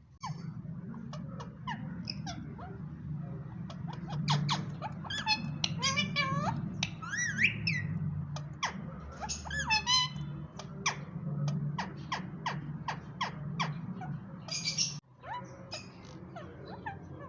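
Ringneck parrot chattering and squawking: rapid short chirps and whistled glides rising and falling in pitch, over a steady low hum. It breaks off abruptly near the end, then a few fainter chirps follow.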